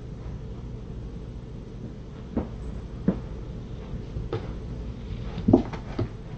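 A steady low hum with about five scattered knocks and thumps, the loudest about five and a half seconds in.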